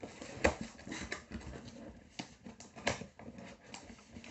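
Handling noise: scattered clicks and light knocks as a diamond painting kit box and its packaging are moved about on a table.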